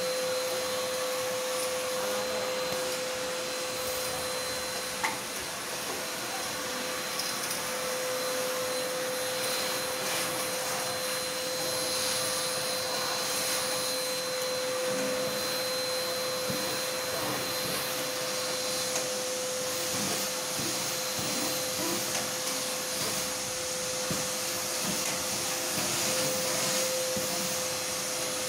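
Vacuum cleaner running steadily, a constant whine over the rush of air through its hose as the nozzle is worked along a window's metal grille; one sharp knock about five seconds in.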